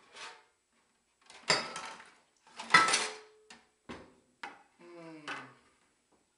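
Dishes clattering in a kitchen sink as a plate is pulled out, with two loud clanks about one and a half and three seconds in, then a few lighter knocks.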